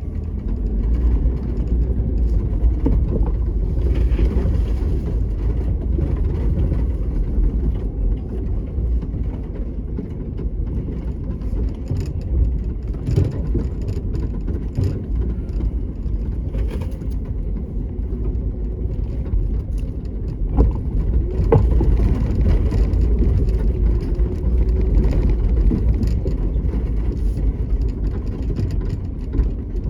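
Motor vehicle driving slowly down a rough dirt track: a steady low engine and road rumble, with scattered rattles and knocks from the bumpy ground.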